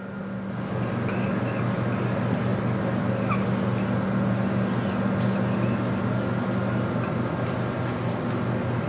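Steady mechanical hum under a broad rushing noise. It swells in over the first second, and the higher of its two hum tones stops about seven seconds in.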